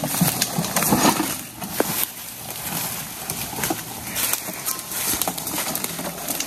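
Footsteps pushing through dry leaf litter and undergrowth, with irregular snaps, crackles and rustling of brush.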